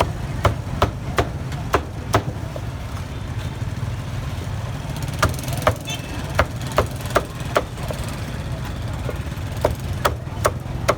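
Meat cleaver chopping on a wooden block: sharp knocks in runs of four to six, about two or three a second, with short pauses between runs, over a steady low hum.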